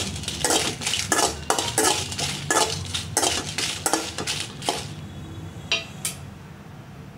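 Metal spoon scraping and clinking against a metal kadai while stirring dried red chillies as they roast, a stroke every half second or so. The stirring stops about five seconds in, followed by two light clinks.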